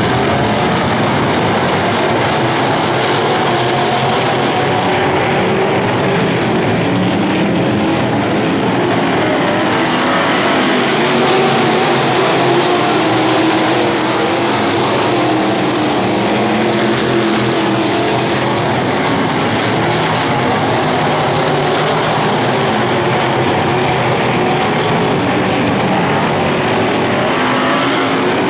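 A pack of dirt-track modified race cars at full race pace, many engines running together loud and unbroken, their pitches rising and falling as cars accelerate and lift through the turns.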